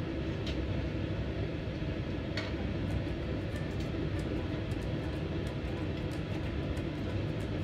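Pot of water at a rolling boil on a gas burner, a steady low rumble, with a few light clicks of metal tongs against a wok, the sharpest about half a second and two and a half seconds in.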